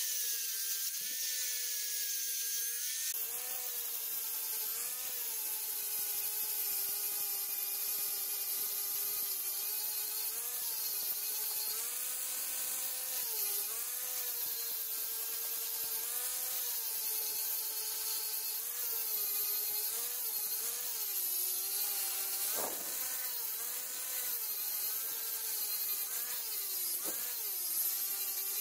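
Electric angle grinder running with its abrasive disc pressed against the rusted steel of an old butcher's knife blade, grinding it down. The motor's whine sags in pitch and recovers over and over as the disc bites and lifts, with the grinding rasp heavier from a few seconds in.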